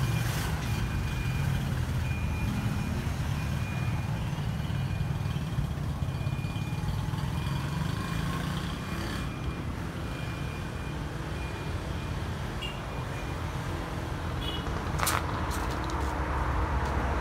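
Wind buffeting the phone's microphone, a steady low rumble. A faint high note repeats in short dashes through the first half, and a few sharp clicks come near the end.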